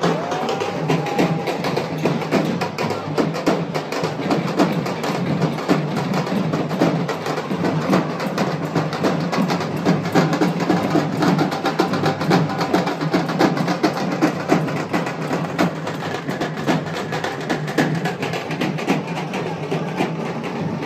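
Fast, dense drumming with other percussion, playing continuously.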